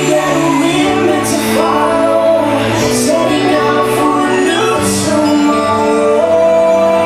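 Show soundtrack music with singing over held chords that change every second or two.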